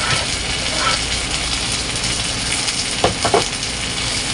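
Chopped chicken livers and gizzards sizzling as they fry in butter in a nonstick pan. A spatula stirs them, with a few quick scrapes against the pan about three seconds in.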